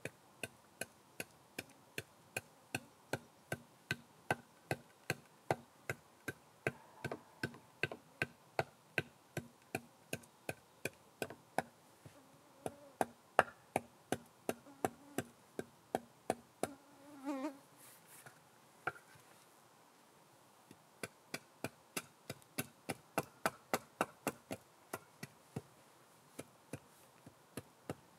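Hand-carving tool strokes on wood: sharp, regular clicks about two to three a second, with a short scrape and then a pause of about two seconds roughly two-thirds of the way through before the clicking resumes.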